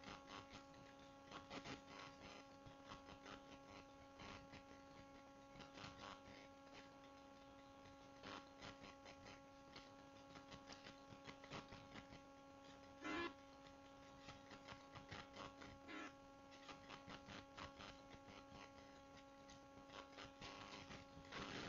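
Faint computer mouse clicks, irregular and sometimes in quick runs, over a steady electrical mains hum picked up by the recording setup.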